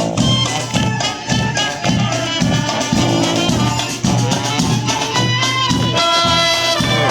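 Klezmer band playing live, brass horns carrying the tune over a steady beat of about two pulses a second.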